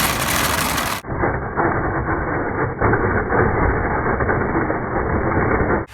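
A vehicle being driven, its engine and motion noise running loud and steady. About a second in the sound turns duller and more muffled.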